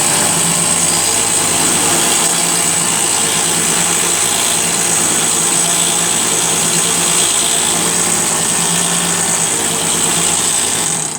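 Homemade 2x72 belt grinder with delrin rollers running steadily at speed: a constant motor hum under a high hiss from the abrasive belt.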